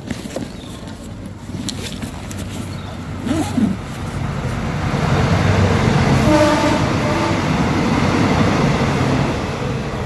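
A large vehicle passing close by, its noise building over a few seconds and fading again, with a brief horn-like tone in the middle.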